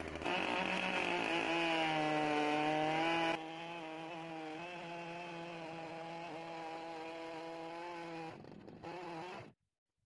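Chainsaw running at high, steady revs under load, ripping lengthwise through a log in a chainsaw mill. The sound drops noticeably in level about a third of the way in and stops shortly before the end.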